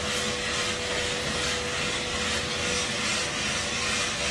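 Gas-fired 1 kg coffee roaster running during a roast: a steady rush of burner and exhaust airflow with a constant hum underneath.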